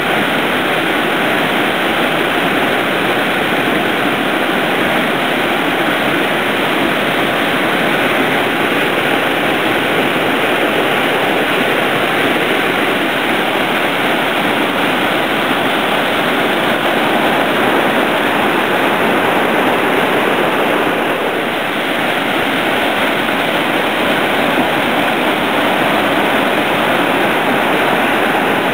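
River rapids pouring through a rocky gorge: a loud, steady rush of whitewater.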